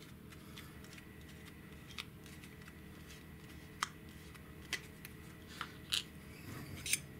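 Faint, scattered clicks and ticks of hard plastic parts as a compressed-air filter separator's plastic baffle is unscrewed and the sintered bronze filter element is worked free, with a handful of sharper clicks in the second half.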